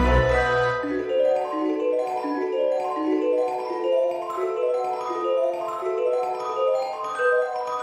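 Instrumental music: a run of quick, light pitched notes stepping up and down, over a deep bass note that dies away about a second in.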